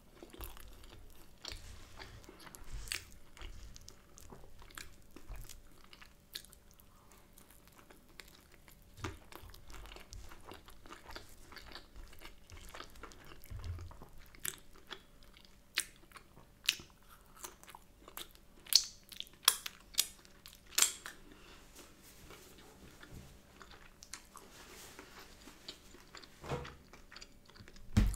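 Close-up chewing of a mouthful of loaded brioche bagel sandwich with egg and bacon, with many sharp wet mouth clicks and smacks. The clicks are loudest about two-thirds of the way through.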